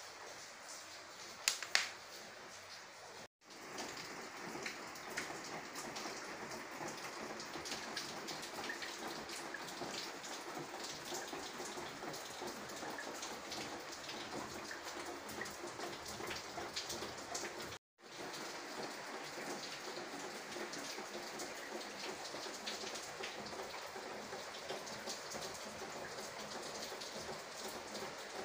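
Steady rain pattering, with two sharp clicks about one and a half seconds in. The sound cuts out completely for a moment twice.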